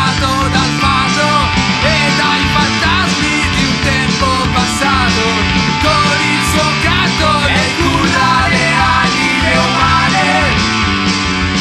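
Hard rock band playing a song: electric guitar with lines that bend in pitch, over bass and a steady drum beat.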